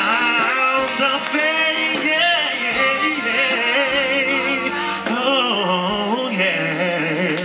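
Live band playing with guitar, drums and trumpet under a singer's long, wavering vocal runs sung with vibrato.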